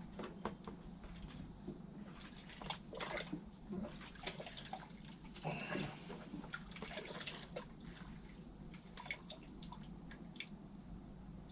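Water splashing and dripping as a rusty metal find is rinsed off after electrolysis, with scattered irregular clicks and knocks from handling.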